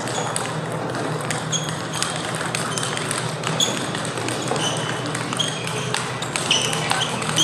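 Table tennis balls clicking off bats and tables in quick rallies at several tables at once, over a steady low hum in the hall.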